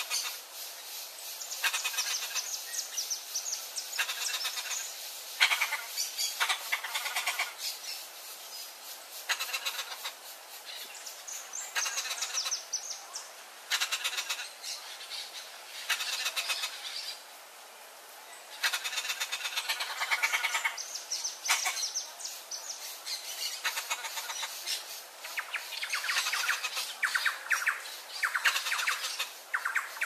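Turquoise-fronted parrots calling in repeated bouts of rapid, rasping chatter, each a second or two long with short pauses between, the calls of a young parrot being fed by an adult.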